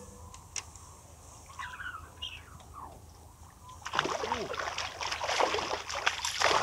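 A hooked crucian carp splashing and thrashing at the water surface as it is drawn in, starting about four seconds in after a quiet spell.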